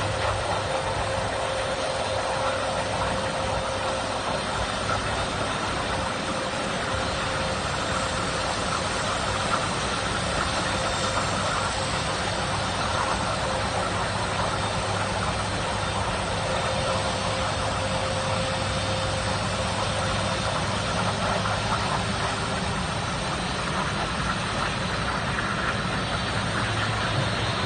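Lockheed C-5M Super Galaxy's four General Electric F138 turbofan engines running at low power as the aircraft taxis, a steady jet rumble with a few constant tones held through it.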